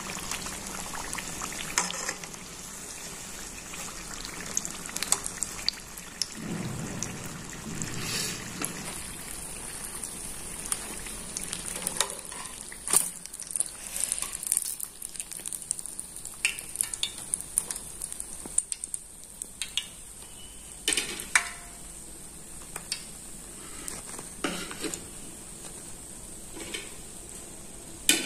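Spring rolls deep-frying in hot oil: a steady high sizzle and bubbling. Scattered sharp clinks come from metal tongs and a wire skimmer knocking against the pan.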